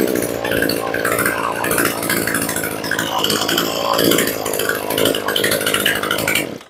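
Maruyama BIGM brush cutter's 26cc two-stroke Mitsubishi TU26 engine idling steadily, then cut off abruptly near the end.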